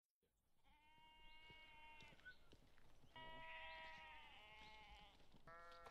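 Lambs bleating faintly: three long, high-pitched calls in a row, the last beginning near the end.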